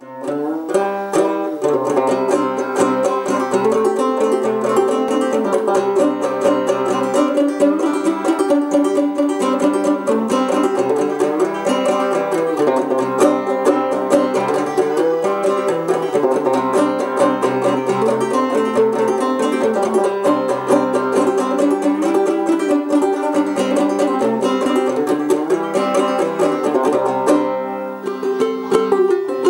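Nate Calkins #75 fretless banjo strung with nylgut strings, played clawhammer (frailing) style: a steady, rhythmic old-time tune. Near the end the playing breaks off briefly, then starts again.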